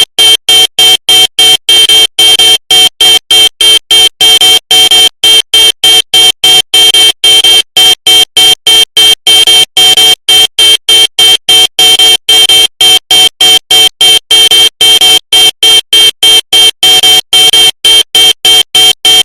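Car horn honked in loud, rapid short blasts, about four a second, a harsh steady tone repeated without letup.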